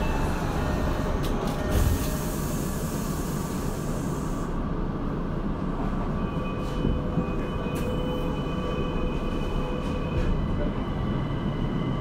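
Tokyo Metro 02 series subway car running, heard from inside the car: a steady rumble of wheels on rail, with a hiss for the first four seconds that cuts out, and thin steady high tones joining about six seconds in.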